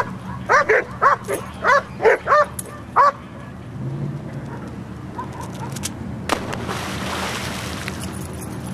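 Golden Labrador barking in quick, high, excited yips, about eight in the first three seconds. About six seconds in comes a sudden splash, then churning water as the dog swims.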